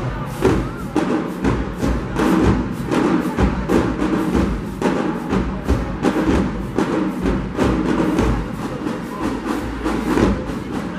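Marching band drumline playing a fast, driving cadence: dense drum hits several per second.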